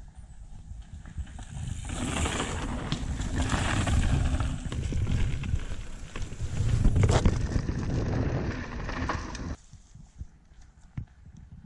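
Wind rushing over the microphone and tyres rolling over a dirt trail as a mountain bike is ridden fast, with knocks and rattles from the bike. It swells about two seconds in and drops away suddenly near the end, leaving scattered clicks.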